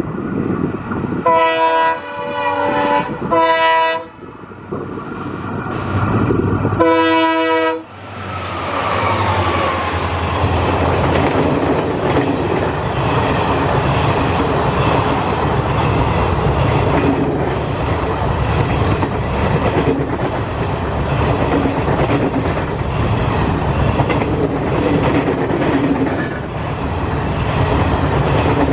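Diesel locomotive horn sounding three short blasts in quick succession, then one longer blast about seven seconds in. The train then passes close by: engine noise falling in pitch, followed by a steady run of coaches with wheels clattering over rail joints.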